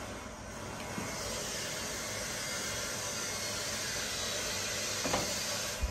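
A steady hiss of background noise throughout, with a faint tap about a second in and another near the end.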